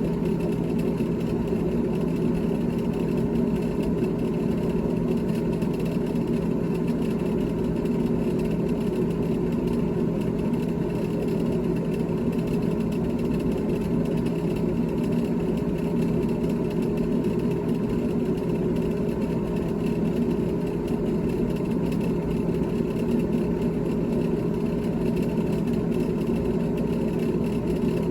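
GE GTH18XCTZRBB refrigerator running: a steady mechanical hum made of several constant tones, with no change in pitch or loudness.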